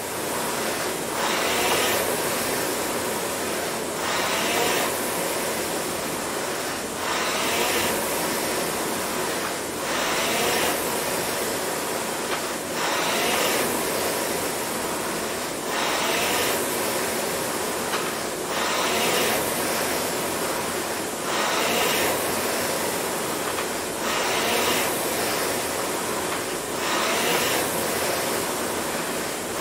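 Concept2 air-resistance rowing machine's fan flywheel whooshing. It surges with each drive about every 2.7 seconds, a steady 22 strokes per minute, with a brief rising whir as the flywheel spins up on each pull.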